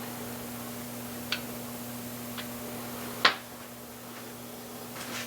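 Three sharp metallic clicks from hand tools and parts during engine assembly, spaced about a second apart, the third and loudest a little past three seconds in, over a steady low hum.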